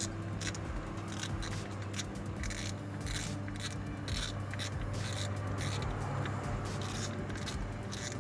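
Irregular small clicks and scrapes of a Daiwa Crossfire 8000 spinning reel's metal and plastic parts being handled as the locked-up reel is taken apart, over a steady low hum.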